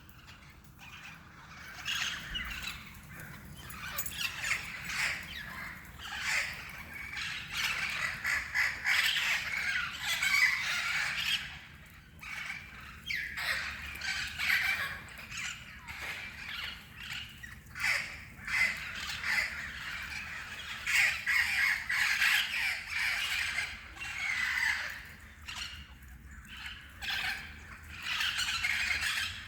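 Parrots squawking and chattering: many short, harsh calls overlapping almost continuously, with a couple of brief lulls.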